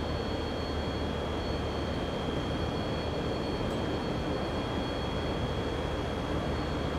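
Steady industrial machinery drone: an even rushing noise over a low hum, with a thin high-pitched whine.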